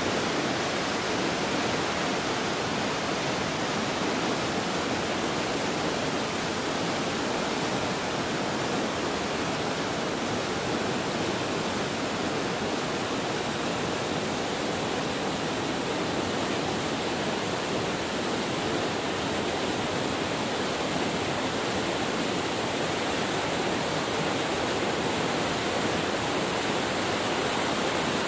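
Steady rushing of fast-flowing water, a river or burn running high after heavy rain, an even hiss with no change in level.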